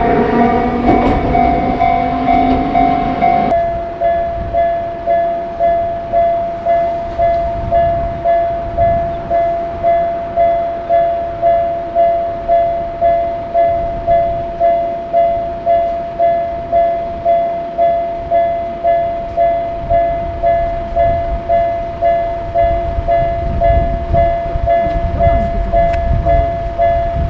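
Electronic Japanese railroad crossing warning bell ringing in an even rhythm, about two strikes a second, with a train's low rumble growing near the end. A louder mix of tones in the first three seconds or so cuts off suddenly.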